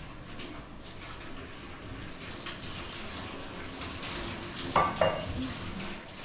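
Tap water running into a kitchen sink as dishes are washed by hand, with two sharp clinks of dishes close together about five seconds in.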